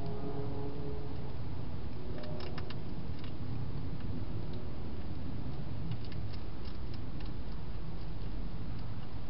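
Hedgehog feeding at a dish inside a clear plastic feeding box: scattered small clicks, bunched in a few short clusters, over a steady low hiss and rumble.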